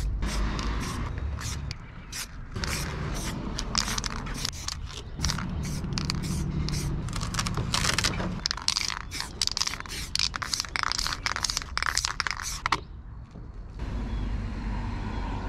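A paper sheet pressed, rubbed and peeled across a wet spray-painted poster, making a quick run of scraping, crackling rustles over a low rumble. The rustling stops a little before the end.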